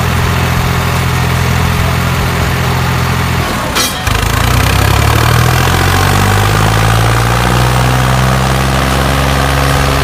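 Steady engine drone with a deep hum, for the toy tractor. About four seconds in the note shifts, with a short click, to a new steady drone.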